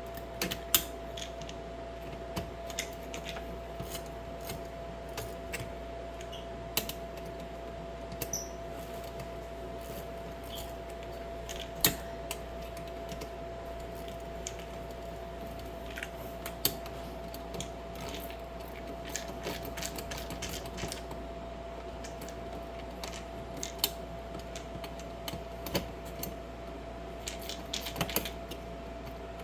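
Irregular small clicks and taps of hand work on an electrical junction box: small metal parts, fittings and tools being handled and fitted, a few sharper knocks among them. A faint steady tone sounds throughout.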